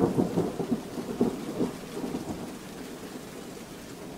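Recorded sound effect of distant thunder rumbling over light rain and wind. The rumble is loudest and most uneven in the first couple of seconds, then eases to a low, steady wash of rain.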